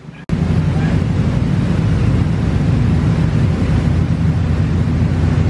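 Tour boat's engine running with a steady low drone, mixed with wind buffeting the microphone; it starts abruptly about a third of a second in.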